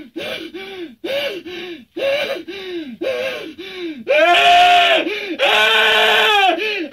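A man's voice performing wordless vocal effects at a dubbing microphone: short gasping cries with falling pitch, about two a second, then from about four seconds in two long, loud, strained screams.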